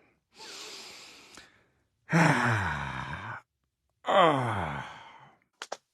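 A man's exaggerated 'dad noises': a breathy intake of air, then two long, loud sighs that fall in pitch, followed by a few quick clicks near the end.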